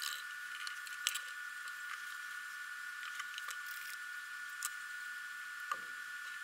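Light clicks and taps from handling a leather strap and small plastic bottles on a wooden board, with a louder knock near the end as something is set down. A steady high-pitched whine and hiss runs underneath.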